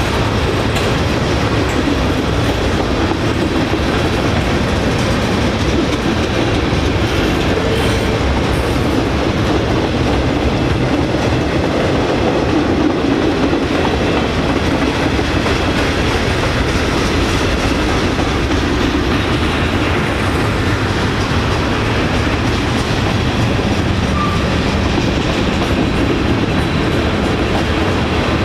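Freight cars of a long manifest train rolling past: a steady, loud noise of steel wheels running on the rails.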